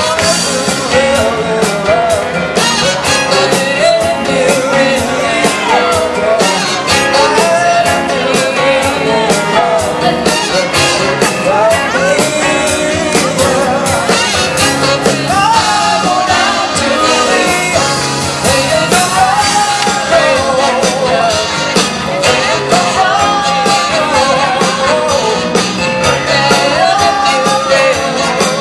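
A live band playing through a PA, with a lead singer and drums keeping a steady beat.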